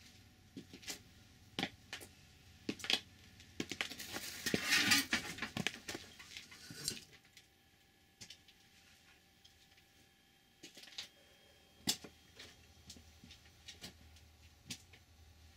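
Light clatter and knocks of small objects being handled and moved, with a denser stretch of rattling and scraping about four seconds in.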